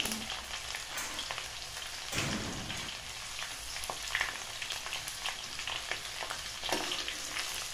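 Chopped ginger and garlic sizzling in hot mustard oil in a metal karahi, a steady crackling hiss of frying as they are browned. A metal ladle stirs them, scraping against the pan about two seconds in and again near the end.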